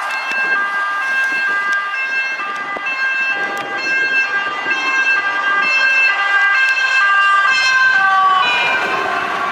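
Two-tone (hi-lo) sirens of fire engines passing at speed, the high and low notes alternating quickly and steadily. About eight seconds in, the pitch drops as a ladder truck passes close by.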